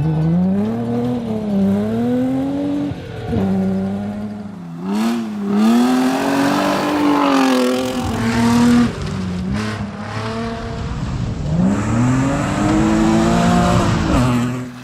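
Rally car engine revving hard, its pitch climbing and dropping again and again as it accelerates, shifts and lifts, with several sudden breaks in the note.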